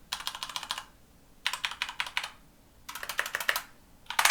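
Mechanical keyboard with linear (red) switches being typed on in three quick runs of keystrokes, each under a second long. A louder clatter begins right at the end.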